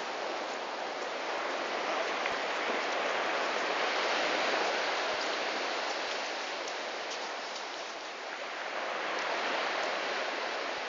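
Surf washing on the beach: a steady hiss of breaking waves that swells, eases off for a moment, then builds again.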